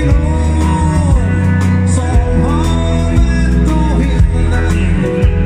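A dansband playing live: a sung melody over electric and acoustic guitars, keyboard, bass guitar and drums, with a steady beat and heavy bass.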